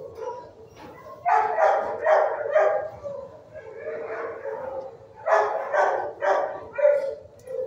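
Shelter dogs barking in the kennels: two runs of quick, repeated barks, one about a second in and one about five seconds in.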